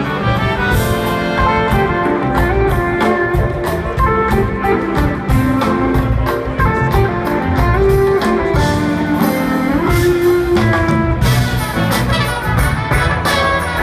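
A jazz-fusion band playing live through a big PA, with electric guitar lines over drum kit, bass and keyboards, heard from the audience.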